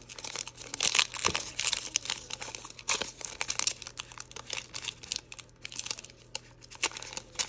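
Foil wrapper of a football trading-card pack crinkling and crackling in irregular bursts as small fingers pull and pick at its crimped seal, trying to tear it open. The loudest crackles come about a second in and again near three seconds.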